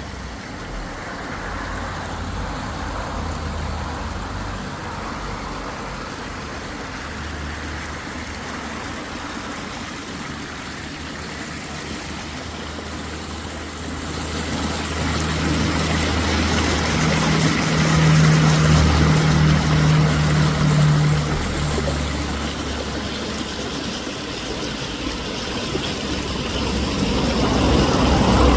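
Running water mixed with road traffic: a steady rush with the low hum of vehicle engines, one of which grows louder a little past halfway and then fades.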